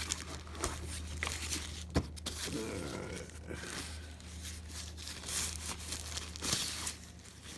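Thin plastic bag crinkling and rustling as it is handled and pulled off a tablet, with a few sharp clicks, the loudest about two seconds in.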